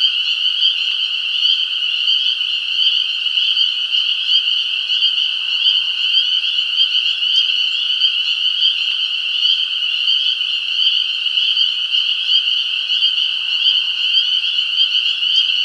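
A dense chorus of many frogs calling at once, a continuous high-pitched trilling that holds steady without pause.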